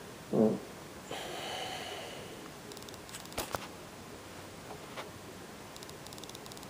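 A short pitched vocal sound from someone close by, about half a second in, then faint rustling and two sharp clicks near the middle.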